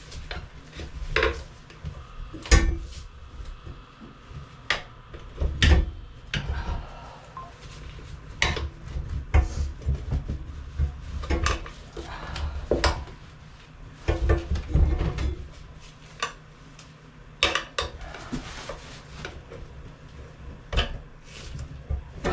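Tire irons clinking and knocking against a spoked motorcycle rim as the tire bead is pried off, in irregular metallic clanks with short gaps between them.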